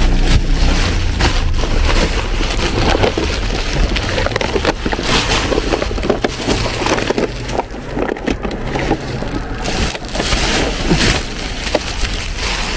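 Black plastic bin bags and rubbish rustling and crackling as they are pulled about and rummaged through inside a dumpster, with a low rumble in the first couple of seconds.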